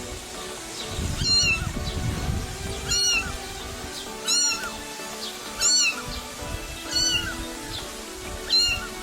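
An animal's high-pitched call, each one rising then falling, repeated regularly about every second and a half, over background music.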